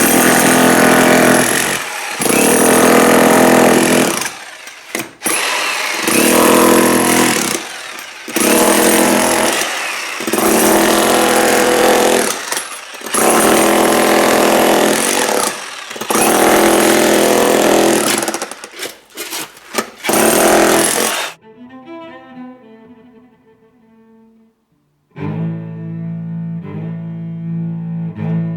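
Jackhammer breaking a concrete slab, run in bursts of about two seconds with short pauses, stopping about three-quarters of the way through. Slow cello music comes in near the end.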